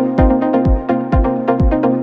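Background electronic dance music with a steady four-on-the-floor kick drum, about two beats a second, over sustained synth tones.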